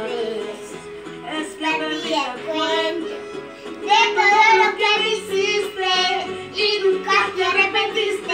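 A young girl singing a Spanish-language song, holding long wavering notes, with music playing behind her.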